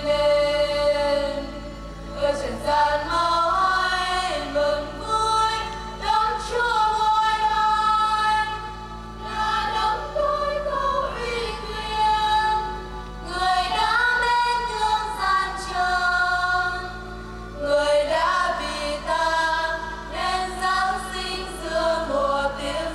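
Choir singing a Vietnamese Christmas hymn in phrases of a few seconds, over a steady sustained low accompaniment.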